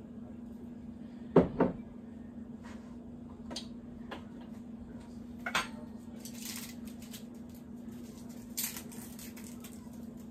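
Kitchen counter handling: items knocked down onto the countertop, including the glass olive oil bottle, with a loud double knock about a second and a half in and several lighter knocks after. A brief rustle about six seconds in, over a steady low hum.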